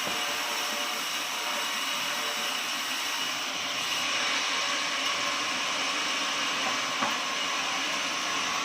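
Sawmill machine running steadily: a constant mechanical whir with a steady high whine over it.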